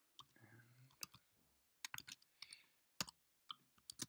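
Computer keyboard keystrokes: a few separate key clicks spaced about a second apart, then a quicker run of typing near the end.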